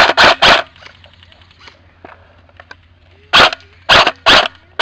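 Airsoft rifle fired close by in single shots: three sharp shots in quick succession at the start, then three more near the end.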